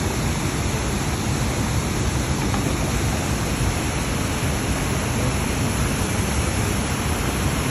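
Steady rushing water, with no change through the whole stretch.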